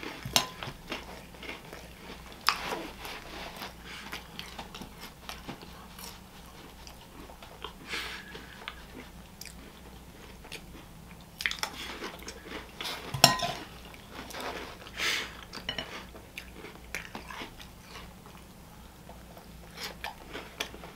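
Close-up mouth sounds of someone biting and chewing crunchy Reese's Puffs cereal, in irregular crunchy bursts. A spoon clinks against the bowl once, sharply, about two-thirds of the way in.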